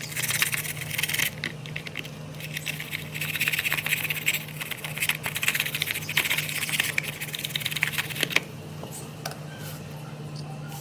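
Scratchy, crackling cleaning sounds on a muddy diecast toy car, coming in bursts and stopping suddenly about eight seconds in, over a steady low hum.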